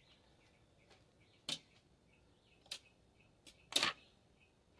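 Automatic record changer of a 1963 Airline console cycling: four sharp mechanical clicks as the tonearm lifts and swings over onto the record, the last and loudest about a second before the end.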